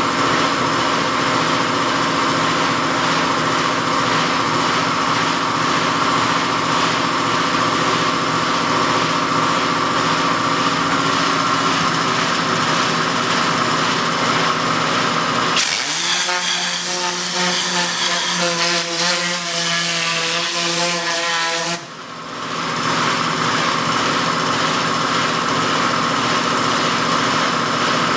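A machine runs steadily with a hum and hiss. For about six seconds in the middle, a different pitched sound with several stacked tones takes over, then cuts off abruptly.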